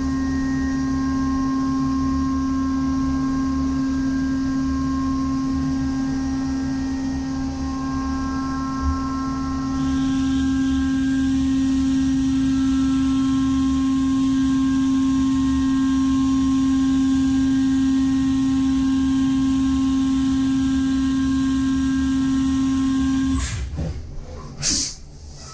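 Brother Speedio W1000Xd2 machining centre milling aluminium with a 3 mm carbide endmill at 16,000 rpm: a steady spindle tone over the hiss of cutting and flood coolant. Near the end the machining sound cuts off abruptly, followed by two short loud sounds.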